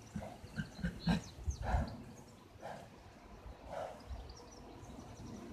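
Several short, faint animal calls, about five of them spaced roughly a second apart.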